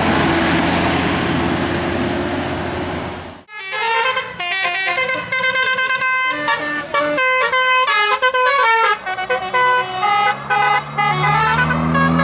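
A vehicle goes by with loud road noise. After a sudden break, a Basuri telolet multi-tone horn plays a fast melody of short, stepping notes, and a low engine note rises in pitch near the end.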